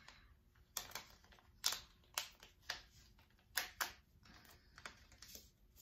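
Cosmetics packaging being opened to get at a lip liner pencil: faint, short clicks and crinkles at irregular intervals, about eight in all.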